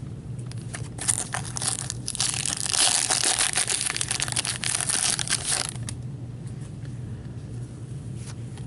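A trading-card pack wrapper being torn open and crinkled: a dense run of crackling and tearing from about a second in until nearly six seconds, over a low steady hum.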